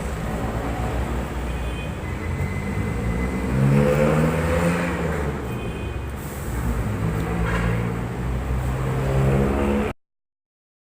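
Motor vehicle engine running over a steady traffic rumble, revving up and falling back twice. The sound cuts off abruptly near the end.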